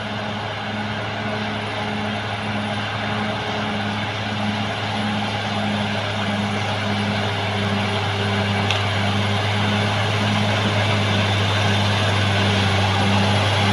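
Diesel engine of a CAT D6R XL crawler bulldozer running steadily under load, a deep hum with a throb about twice a second, slowly growing louder.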